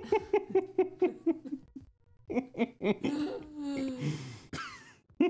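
People laughing: a run of quick, evenly pulsed laughs that breaks off about two seconds in, followed by more giggling and breathy laughter.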